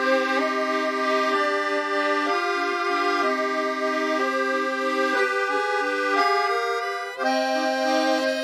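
Accordion music: held reedy chords under a melody that steps from note to note, with a brief dip about seven seconds in.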